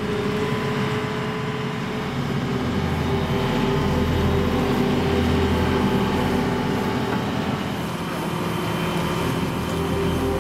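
Engine of heavy lifting machinery running steadily as it lifts a heavy load, with a slight swell in level partway through.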